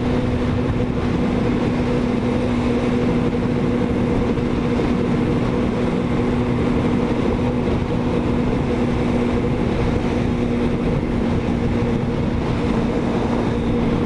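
Motorcycle engine running at a steady cruising speed, its pitch holding level, under a constant rush of wind and road noise.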